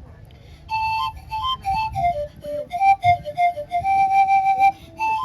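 Wot, the Isan circular bamboo panpipe, played solo. After a short pause comes a quick run of piping notes that mostly step down in pitch, then a note held briefly near the end.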